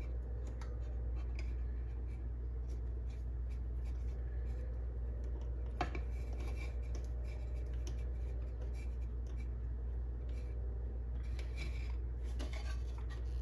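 Faint handling sounds of a twist-on wire nut being screwed onto electrical wires, the wires rubbing and scraping against a metal ring plate, with a single sharp click about six seconds in. A steady low hum runs underneath.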